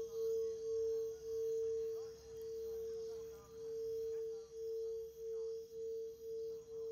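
Ambient drone: one sustained mid-pitched ringing tone that pulses in volume about twice a second, swelling more slowly in the middle.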